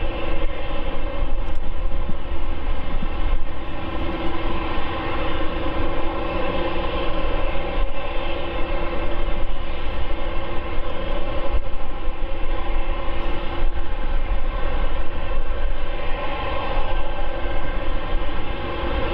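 Boeing 747-8F's GE GEnx turbofan engines running during the engine-start sequence: a steady, loud jet hum and whine, with several held tones over a deep rumble.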